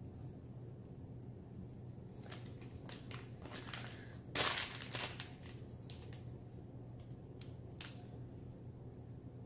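Plastic piping bag crinkling and wax paper rustling under the hands while piping, in short scattered crackles, the loudest about four and a half seconds in; a low steady hum underneath.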